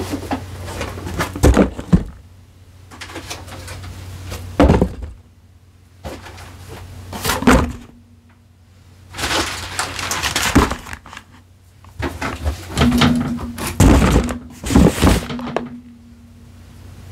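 Hands handling a camera's cardboard box and packaging: separate taps and thunks, with longer bursts of rustling and scraping about halfway through and again near the end, over a steady low hum.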